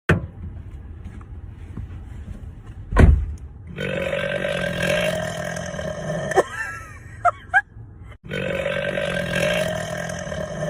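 A girl burping: long, drawn-out, steady-pitched belches, one starting about four seconds in and lasting over two seconds, and another starting after an abrupt break about eight seconds in. A sharp thump comes about three seconds in, just before the first burp.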